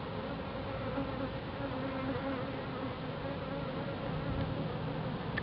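Honeybee colony in a top-bar hive humming steadily, many bees buzzing at close range over their comb.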